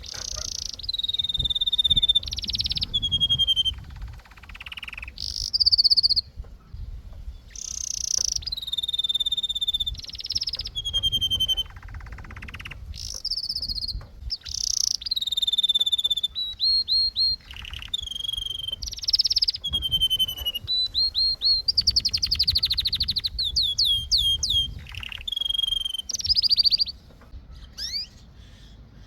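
Domestic canary singing: a varied song of clear whistled notes, fast trills and buzzy rolls, in phrases a second or two long with short pauses between them.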